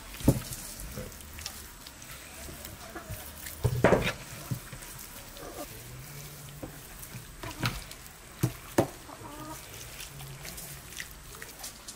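Whole raw chicken being rubbed with spices and turned over on a wooden cutting board by hand: wet slaps and a few sharp knocks against the board, the loudest about four seconds in and a pair near the end.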